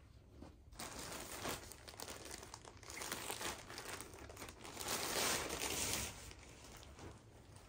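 Plastic mailer bag crinkling and rustling as it is handled and a garment is pulled out of it; it starts about a second in, is loudest around five seconds in, then dies down.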